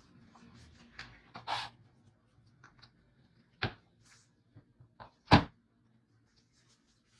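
Painted metal part of a vintage mini scale handled in a plastic tray: a few scattered knocks and clatters, the loudest a little after five seconds in as the part is turned over and set down.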